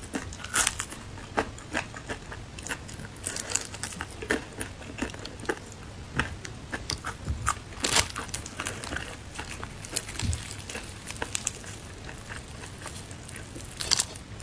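Crisp, thick-battered fried chicken being bitten, chewed and pulled apart by hand, its coating crackling and crunching in quick irregular clicks. The loudest crunches come about halfway through and just before the end.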